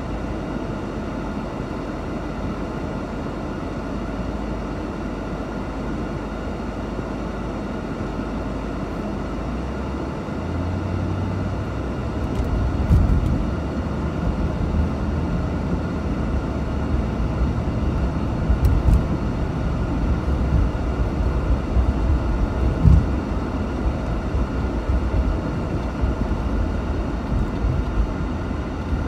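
In-cabin sound of a 1989 Mercedes-Benz 560 SEL's V8: a steady low idle while stopped at first. From about ten seconds in the car pulls away and drives, and the engine and road rumble grow louder, with a few short thumps over bumps in the road.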